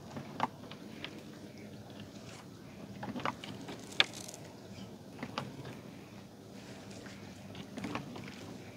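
Scattered light clicks and knocks of a fishing net and its gear being handled aboard a small boat, over a faint steady background. A sharper snap stands out about four seconds in.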